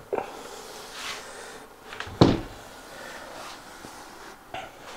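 A sponge rubbing along the edges of an oil-finished oak tabletop, with a single sharp knock about two seconds in.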